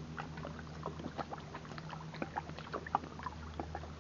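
A boat motor on the lake drones as a steady low hum, with many small scattered clicks and splashes of water over it.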